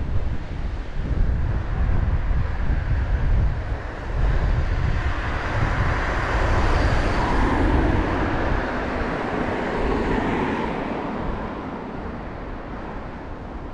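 Wind buffeting the microphone with a low rumble for the first few seconds, then the noise of a passing vehicle swells, peaks about seven or eight seconds in, and fades away.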